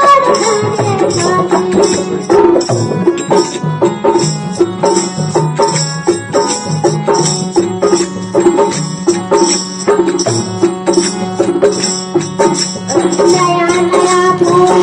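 Instrumental interlude of a devotional folk bhajan: hand percussion keeping a steady beat under held melodic notes, with the singing voice coming back in near the end.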